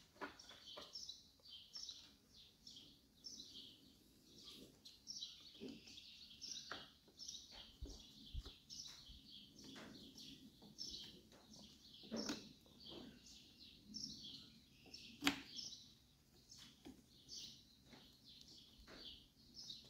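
Faint birds chirping, with scattered light clicks and taps of a steel bolt being worked through a trolling motor's shaft coupling past the wiring. The sharpest click comes about 15 seconds in.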